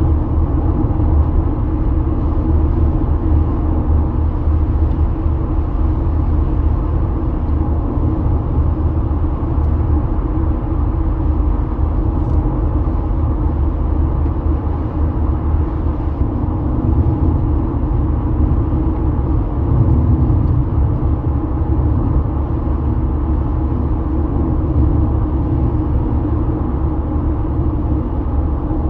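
Steady road noise inside a car cruising at highway speed: an even, low rumble of tyres and engine.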